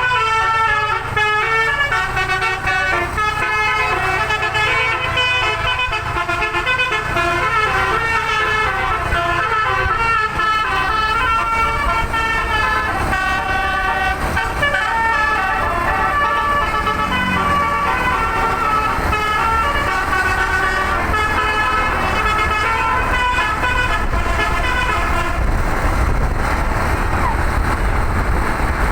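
Bus telolet musical air horn playing a tune, its notes stepping quickly up and down over the low rumble of the bus's engine and the road. About 25 seconds in the horn stops and only the moving vehicle's rumble is left.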